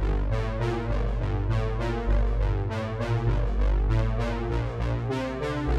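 Background music: synthesizer and electric-piano chords over a steady bass line.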